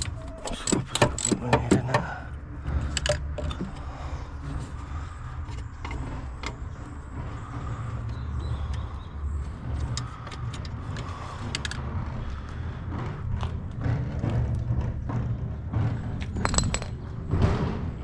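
Metal tools and parts clinking and rattling as they are handled during disassembly work on a car, in a flurry of clatter at the start and again near the end, over a steady low rumble.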